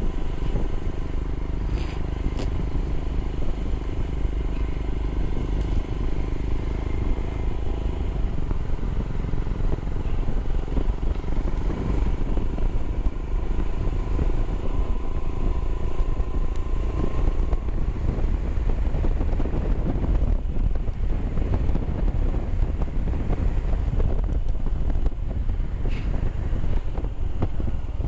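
Royal Enfield Himalayan's single-cylinder engine running steadily as the motorcycle is ridden, with wind rumbling over the microphone.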